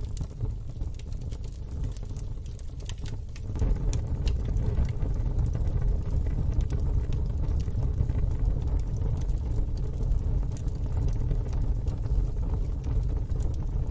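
Fire burning in a fire pit: scattered crackles and pops over a steady low rumble, which grows louder about three and a half seconds in.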